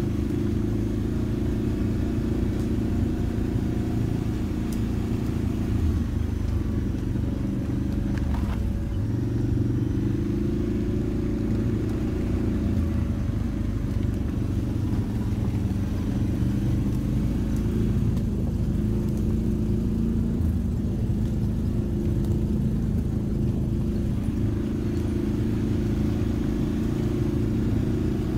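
ATV engine running steadily at low revs, a continuous rumble whose pitch shifts up and down a few times with the throttle.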